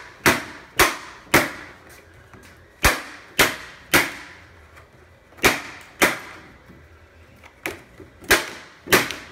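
Sharp smacks of a thin vacuum-formed PETG plastic shell being struck by hand to knock loose the 3D-printed mold stuck inside it, about eleven in groups of two or three, half a second apart. The mold sticks because it lacks enough draft angle.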